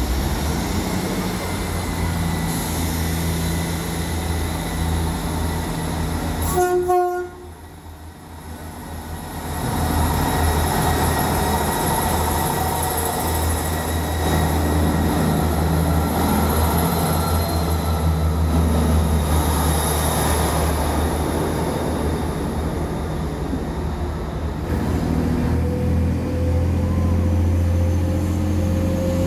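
Diesel multiple-unit trains (a Class 158 and a Class 185) running at a station platform, their engines making a steady low drone. There is a brief horn toot about seven seconds in, and near the end a slowly rising whine as an engine picks up.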